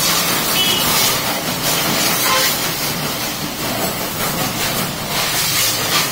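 Pressure washer spraying a jet of water onto a motorcycle's engine, exhaust and rear wheel: a continuous hiss of spray that swells and eases as the jet moves over different parts, over a steady low hum.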